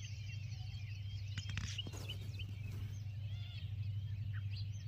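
Many small birds chirping at once, a dense overlapping chorus of short calls, over a steady low hum.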